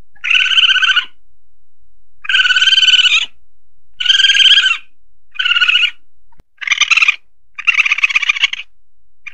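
Recorded calls of an Asian palm civet (musang pandan), played as a hunting lure: a series of about six short, buzzy, trilled calls, each under a second long, coming at a steady pace of roughly one every second and a half.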